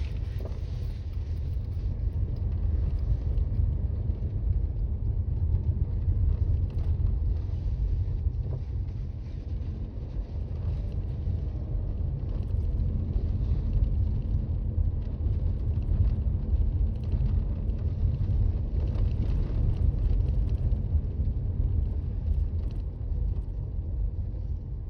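Toyota Raize driving on a snow-covered road: a steady low rumble of road and tyre noise with the engine running under it.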